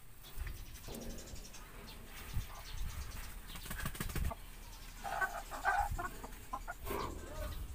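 Live native chickens with tied legs being handled in a metal sidecar cage: wings flapping and feathers rustling, with a few knocks against the frame. Short calls from the hens come about five seconds in and again near the end.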